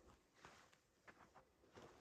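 Near silence, with a few faint crunches of footsteps on dry dirt and brush.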